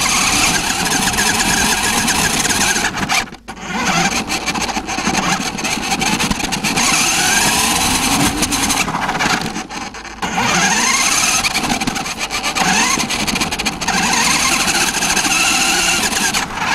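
Radio-controlled car driving with the microphone riding on it: a loud rushing noise with whines that rise and fall as it speeds up and slows. The sound cuts out briefly about three seconds in and again around ten seconds in.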